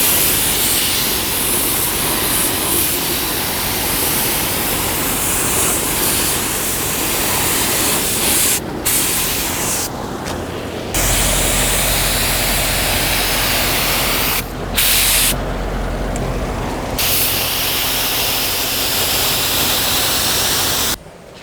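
Paint spraying primer onto a car body: a loud, steady hiss of spray that stops briefly a few times as the trigger is let off, and then cuts off suddenly near the end.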